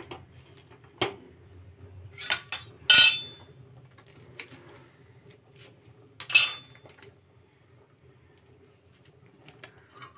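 A steel knife clinking and scraping against a flat griddle pan while toasted sandwiches are cut on it: a few sharp metal clinks. The two loudest come about three seconds and six and a half seconds in, each with a brief metallic ring. A faint steady hum runs underneath.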